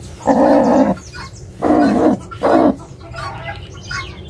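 Broody barred carijó hen growling in three bursts in the first three seconds, the first the longest: the defensive growl of a sitting hen being handled on her nest.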